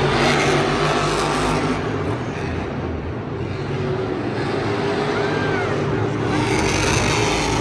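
Monster truck's supercharged V8 engine running loudly, getting louder near the end.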